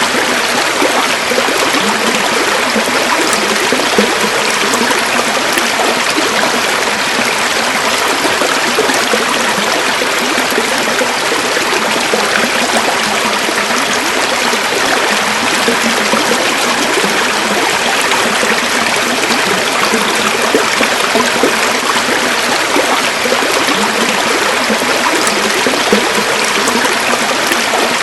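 A river flowing: steady, even rushing and burbling of running water.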